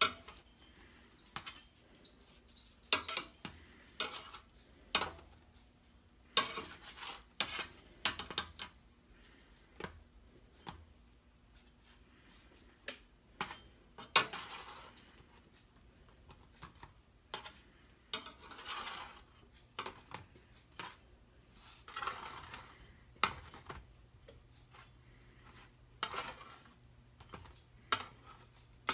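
A spatula scraping under cookies and clinking against a metal baking sheet as the cookies are flipped one by one, in irregular clicks and short scrapes every second or so.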